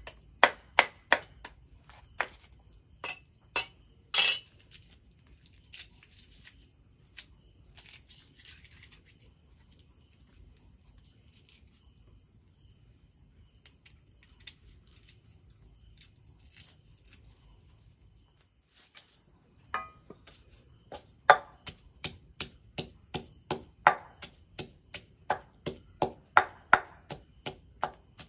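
A knife chops on a wooden chopping block in a quick run of sharp knocks during the first few seconds. Then it goes quiet except for small handling sounds. From about twenty seconds in, a wooden pestle pounds in a mortar with steady strikes about two a second, while crickets chirr steadily throughout.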